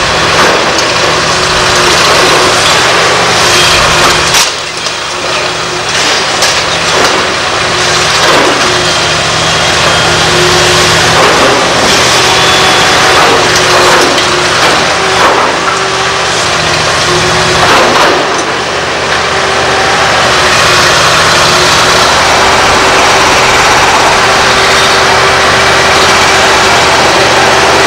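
Liebherr R964 demolition excavator's diesel engine running steadily under load, with repeated crashes and crunching of concrete and masonry as the long-reach stick breaks into the building.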